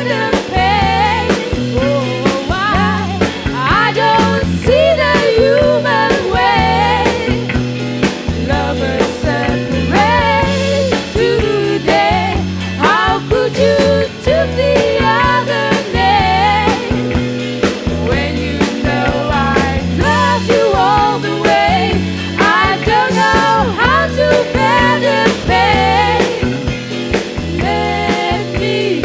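Rock band playing a song live: drums keeping a steady beat, bass and guitars, with singing over them, on an analog live recording.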